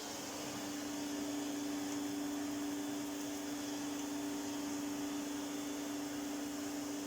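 1988 Electrolux 612 upright vacuum cleaner running steadily: an even motor whine over a rush of air.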